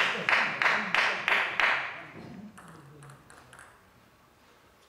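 Rhythmic clapping, about three claps a second, that dies away about two seconds in, followed by a few faint light taps.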